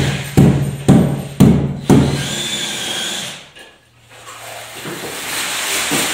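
Building work on a renovation: a run of sharp knocks about twice a second, then a steady power-tool whir that dips out briefly around the middle and builds again.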